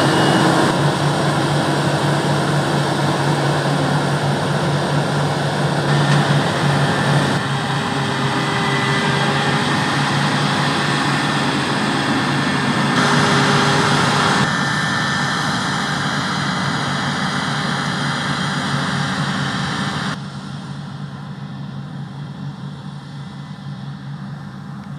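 Large diesel harvest machinery running steadily under load, a continuous mechanical noise with a low hum. The sound changes abruptly several times and drops somewhat quieter near the end.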